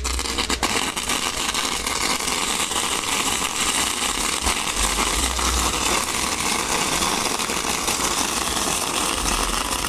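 Pyrotechnic castillo towers burning: a steady, dense hiss of spark fountains with constant crackling.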